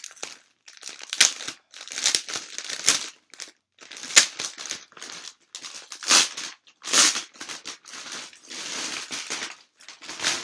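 Plastic package crinkling and rustling in irregular bursts as it is opened and the dress inside is pulled out.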